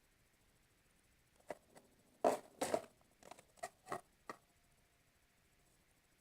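Sticky homemade slime being kneaded and pulled by hand. About a second and a half in comes a quick run of short squelching, popping clicks, about eight of them over three seconds. The slime is still tacky.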